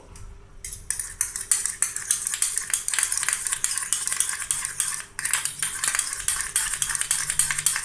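A spoon stirring honey into fresh ginger juice in a small cup, with rapid clinking and scraping against the vessel. The stirring starts about a second in and pauses briefly about five seconds in.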